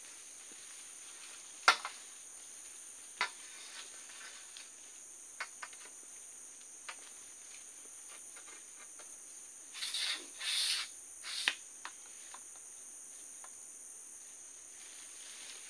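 A steady, high-pitched insect chorus. Over it come sharp knocks and lighter clicks from the long metal egrek pole being handled: a loud knock about two seconds in and another a second or so later. A short cluster of scraping, rustling noises follows around ten seconds in.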